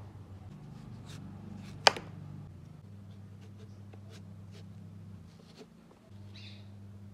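Kitchen knife cutting through a watermelon's rind on a wooden cutting board: faint crackles and scrapes, with one sharp crack about two seconds in. A low steady hum runs underneath.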